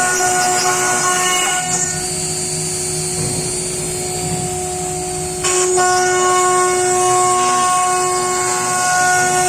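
CNC router cutting wood: the spindle runs with a steady high whine of several tones over a hissy cutting noise. The cutting noise eases about two seconds in and comes back louder about five and a half seconds in, as the bit engages the wood again.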